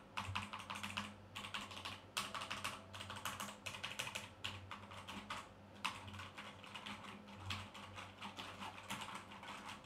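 Typing on a Performax Xetra Comfort mechanical keyboard with linear red switches: a fast, uneven run of key strokes.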